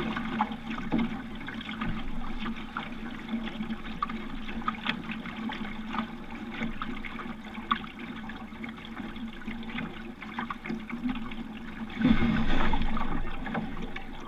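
Water lapping and splashing against the hull of a Rooster 8.1 sailing dinghy under way, with many small slaps against the bow. About twelve seconds in there is a louder rush of noise lasting a second or so.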